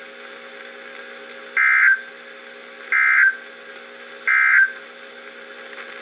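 NOAA Weather Radio end-of-message data code (SAME "NNNN") from a Midland weather radio: three short, harsh digital warbles about a third of a second each, roughly 1.3 seconds apart. A faint low hum sits under it between the bursts.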